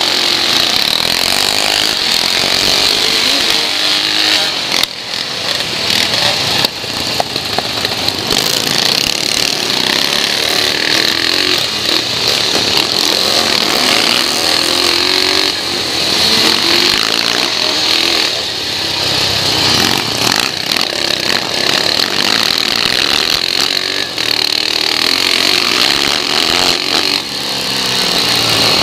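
BSA C15 250 single-cylinder four-stroke engine running hard under load on a scrambles course, heard on board. Its revs rise and fall repeatedly as it accelerates and backs off.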